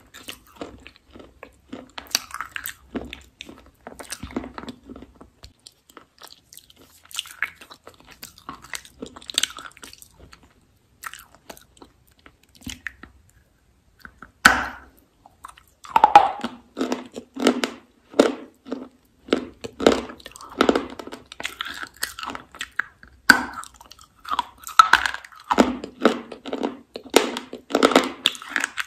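Close-up mouth sounds of a person eating a hard pink bar: quiet scattered chewing at first, then one sharp crunchy bite about halfway through, followed by steady rhythmic crunchy chewing, about two crunches a second.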